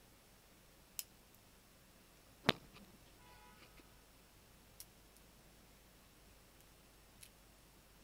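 Small magnetic balls clicking as they snap together: four sharp clicks at uneven intervals, the second one much the loudest.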